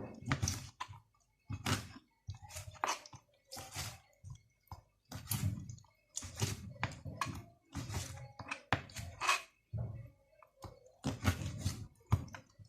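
Knife cutting through cleaned beef tripe against a cutting board, a string of short crunchy strokes about one or two a second.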